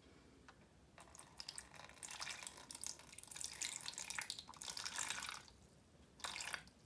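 Water poured from a water-filter pitcher into a plastic tub of sourdough starter, measured in for the starter's feeding. A trickling stream starts about a second in and runs for about four seconds, then a short second pour comes near the end.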